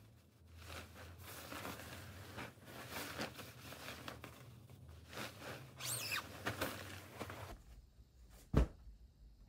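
Cotton bedding rustling and swishing as a duvet and sheets are pulled and stripped off a bed, with one sharp thump about a second before the end.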